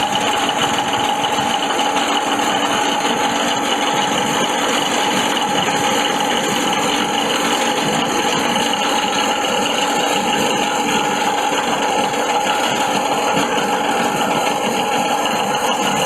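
Foam and cloth shredder machine running steadily, a continuous mechanical whir with a few steady tones held through it.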